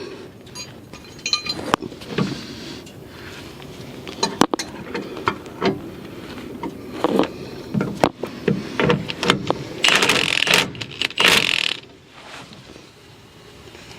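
Hand tools on a seized stabilizer link nut: metal clicking, clinking and scraping as a wrench works the fastener, with two longer, louder scraping stretches about ten seconds in.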